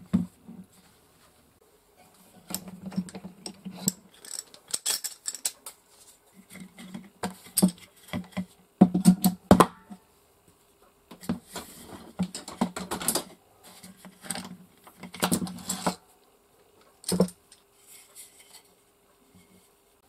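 Steel bar clamps being handled: screws turned, jaws rattling along the bars and metal clinking, in several bursts of clicks and knocks, with a single sharp knock about three quarters of the way through.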